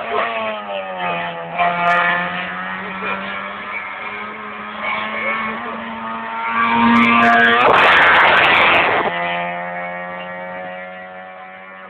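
A car engine running hard at high revs with a steady, slightly falling note, a loud rushing noise breaking in for about a second near eight seconds, then the engine note fading away.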